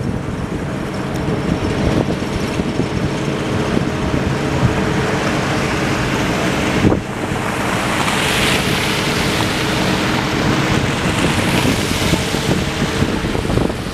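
City street ambience: the steady hum of engines and traffic with wind on the microphone, swelling into a louder hiss about eight seconds in.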